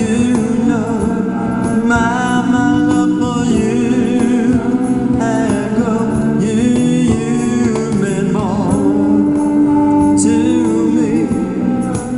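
Live band playing an amplified song, with an electric keyboard, an electric guitar and a cajon behind a singer on a microphone, including long held, wavering sung notes.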